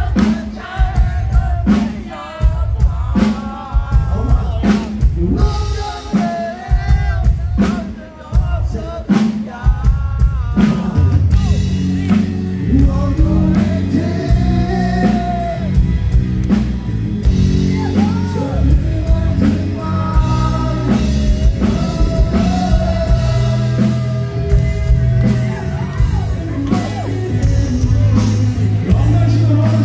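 Live rock band with a male singer, heard loud through the stage PA: sung lines over sharp drum hits at first, then about ten seconds in the full band fills out under long held vocal notes.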